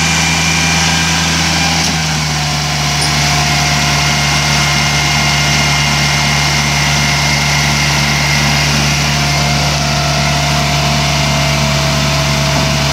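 Tow truck's engine running steadily at idle, its note stepping slightly lower about two seconds in, with a steady whine above it.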